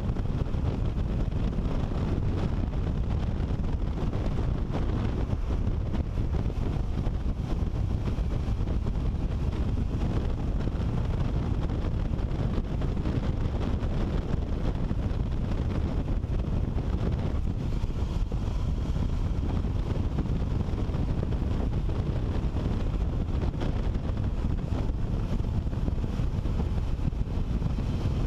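Steady low rumble of wind buffeting the microphone of a helmet camera on a motorcycle riding at road speed.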